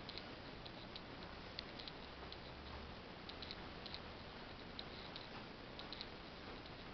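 Faint, irregular small clicks and ticks over a steady hiss: handling noise from a handheld camera carried through an empty room.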